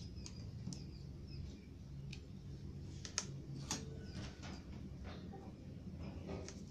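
Light clicks and taps of small tools and wires being handled on a workbench, the sharpest about three seconds in, with faint short high chirps and a low steady hum in the background.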